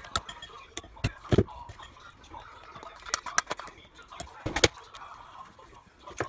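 Irregular clicks and knocks of kitchen utensils and dishes during food preparation, the loudest about a second in and again about two-thirds through, over a faint background voice.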